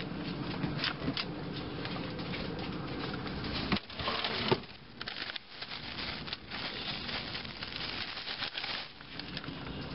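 Plastic bags rustling and crinkling as they are handled in a refrigerator's crisper drawer, with a couple of sharper knocks about four seconds in, likely the drawer being moved.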